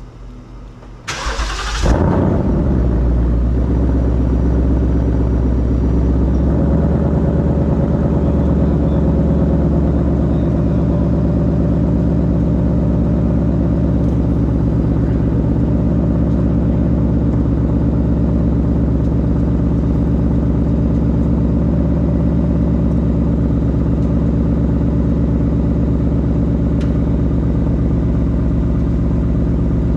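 2020 Mustang GT's Gen 3 Coyote 5.0 V8 cranked and started about a second in, flaring briefly and then settling into a steady idle. The exhaust has had its resonator replaced by a T304 stainless H-pipe.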